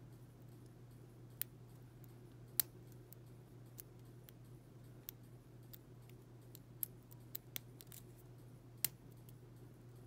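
Small, sharp metallic clicks at uneven intervals from a lock pick working the pin stack inside a brass S&L pin-tumbler padlock, held under tension, over a faint steady low hum.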